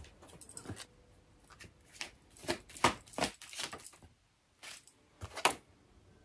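A deck of oracle cards being shuffled by hand: irregular crisp slaps and flicks of the cards, with a short pause about four seconds in.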